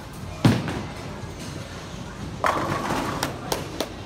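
A bowling ball lands on the lane with a heavy thud just after release, rolls, and about two and a half seconds later crashes into the pins, followed by a few sharp clacks of pins.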